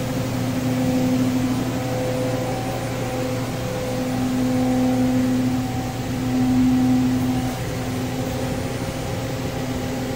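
Steady electrical hum of a robotic TIG welding cell's power and cooling equipment, with a low tone that swells and fades a few times.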